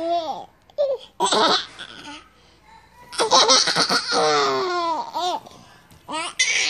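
A toddler laughing in bursts: a short laugh about a second in, a long run of laughter from about three to five seconds, and another burst starting near the end.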